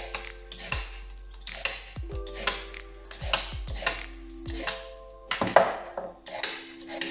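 Metal vegetable peeler scraping down carrots in repeated short strokes, with light knocks on a wooden cutting board, over background music with a steady melody.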